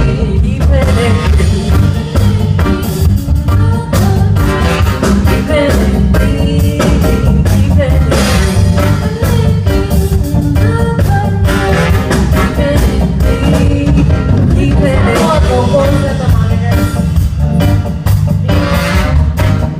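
Rock band playing a song live, with a singer's voice over guitar, heavy bass and a steady drum beat.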